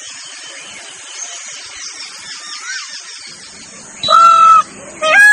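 Peacock calling: a few seconds of faint background bird chirps over a high steady hiss, then two loud, drawn-out calls, one about four seconds in and one starting near the end.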